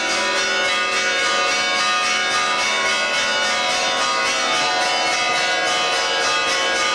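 Church bells pealing in rapid, even strokes, their many overlapping ringing tones running together into one continuous sound.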